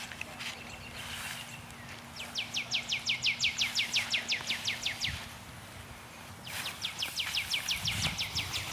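A songbird singing a rapid trill of downward-slurred notes, about eight a second. It sings twice: a run of nearly three seconds starting about two seconds in, and another starting near six and a half seconds.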